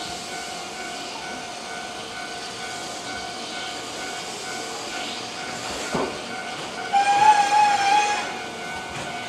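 Keihan 8000-series electric train standing at the platform with a steady hum, then a click about six seconds in and one loud horn blast lasting about a second near the end.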